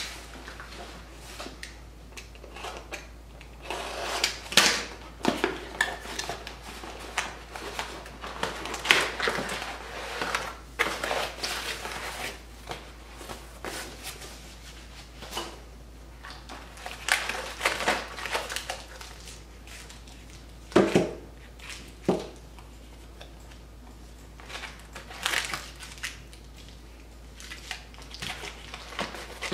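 Cardboard shipping box opened by hand and its packing handled: cardboard flaps, a foam sheet and bubble-wrapped circuit boards rustling and crinkling in irregular spurts, with occasional sharp knocks on a wooden bench.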